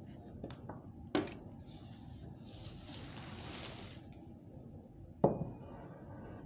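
Handling noises on a tabletop: a knock about a second in, a rustle of satin cloth and plastic lasting a couple of seconds, then a sharper knock with a short ring, the loudest sound, as the potted arrangement and its cloth are moved about.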